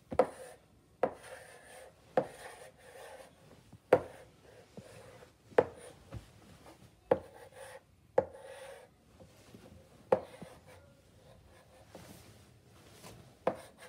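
Chalk writing on a chalkboard. A sharp tap as the chalk strikes the board starts each stroke, followed by a short scratching scrape, repeating about every one to two seconds.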